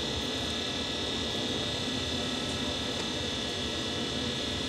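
Steady background hum with a constant high buzz, unchanging, with no distinct knocks or clicks.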